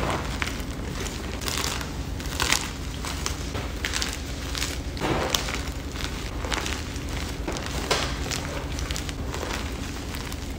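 Blocks of Cali Crush 'Plain Jane' gym chalk crushed and crumbled by hand: irregular gritty crunches and crackling as chunks break and powder is squeezed between the fingers, with a few louder snaps scattered through.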